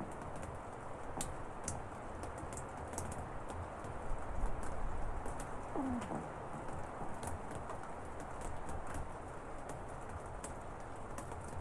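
Steady rain shower heard through an open window, with scattered sharp ticks of drops. About six seconds in, a single short sound drops in pitch.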